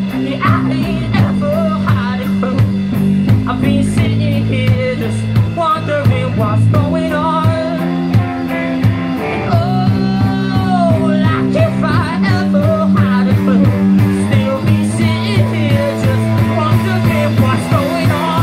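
A live rock band playing a song: electric guitar over bass and drums with a steady beat, and a bending lead line, with no lyrics sung here.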